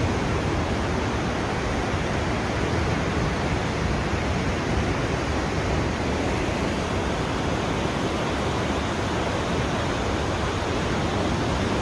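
Fast-flowing floodwater rushing, a steady, unbroken noise that holds one level throughout.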